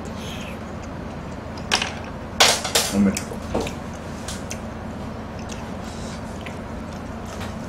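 A handful of short, sharp clatters and knocks, the loudest a quick cluster about two and a half seconds in, over a steady low background hum.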